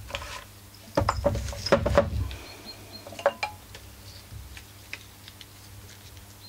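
Bare aluminium two-stroke engine block with its plastic fuel tank turned over by hand and set down on a workbench: a cluster of clattering knocks about a second in, lasting about a second and a half, then a sharp click and a few light clicks.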